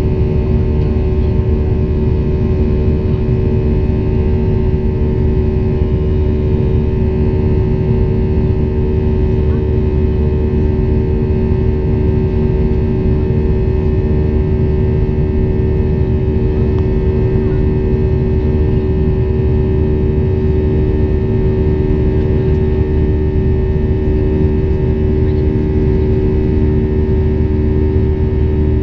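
Boeing 737-800's CFM56-7B turbofan engines during the climb-out, heard inside the cabin over the wing: a loud, steady rumble with a drone of several held tones.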